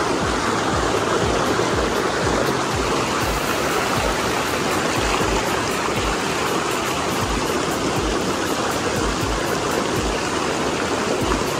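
Hot spring water rushing and splashing steadily through natural thermal pools, like a small waterfall.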